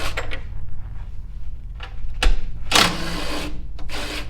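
Cordless impact driver with a T30 Torx bit spinning out screws from a rear fascia, in two short motor bursts in the second half.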